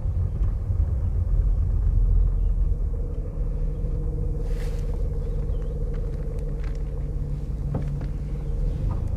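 Steady low rumble of a slowly moving vehicle, with a faint engine hum.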